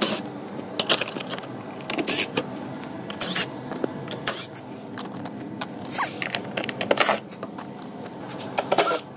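Cordless drill with a socket extension backing out 10 mm bolts from a Ford F-150 door panel: a run of separate clicks, knocks and scrapes of the socket and tool against the bolts and plastic trim.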